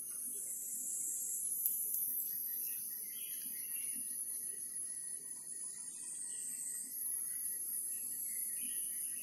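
Steady high-pitched insect chorus, its layers shifting slowly, with one sharp click just under two seconds in.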